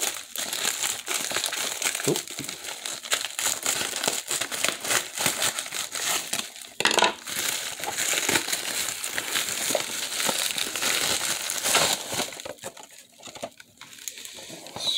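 Padded plastic mailer crinkling and rustling, with many small crackles, as scissors cut it open and hands work it; the noise dies down about twelve seconds in.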